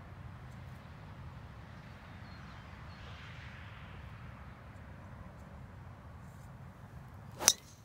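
A driver striking a golf ball off the tee: one sharp, loud crack near the end, over a steady low background hum.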